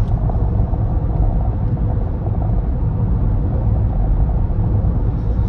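Steady low rumble of a car on the move, heard inside the cabin: road and engine noise.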